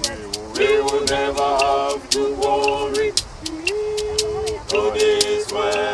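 Vocal group singing a gospel song a cappella, holding long notes, over a fast steady percussive beat of about four to five sharp clicks a second.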